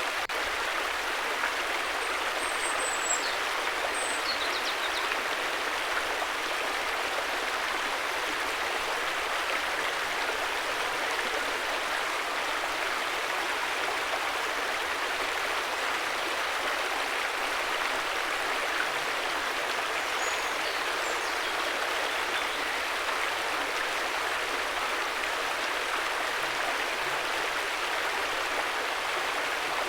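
River water rushing over rocks in a steady, even flow, with a few faint high chirps near the start and again about twenty seconds in.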